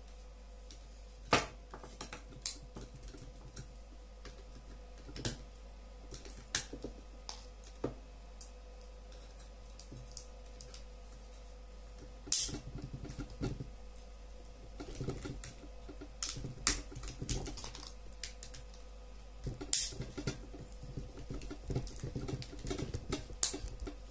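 Plastic headphone and ear-defender cup parts being handled and worked with pliers: irregular sharp clicks, snaps and taps, coming thicker in the second half.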